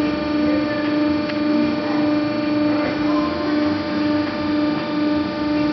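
Haco TSX hydraulic guillotine shear's pump unit running at idle, a steady hum with a strong even tone.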